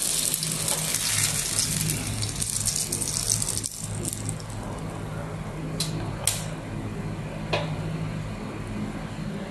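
Food sizzling on a hot electric grill pan as a bun is lifted off it with metal tongs; the crackling fades about four seconds in, followed by a few sharp clicks of the tongs.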